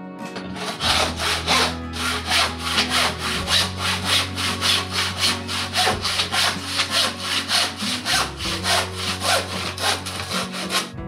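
Hand saw cutting through a wooden board, with quick, even back-and-forth strokes, about four a second, starting about a second in.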